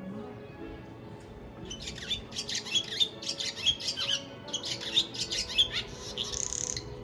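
A bird calling in a rapid run of high chirps from about two seconds in until shortly before the end, over faint background music.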